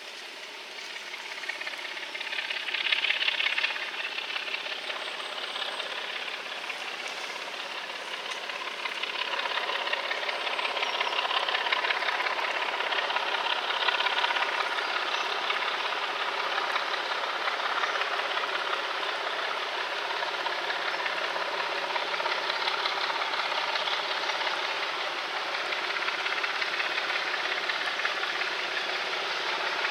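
Large Prairie steam tank locomotive working, with a steady sound of steam and train noise. It builds over the first couple of seconds, is loudest about three seconds in, then carries on evenly.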